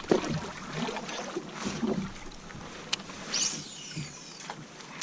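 Water splashing and sloshing around a sit-on-top kayak as it is paddled and shifted about, with a couple of sharp knocks, one just after the start and one about three seconds in.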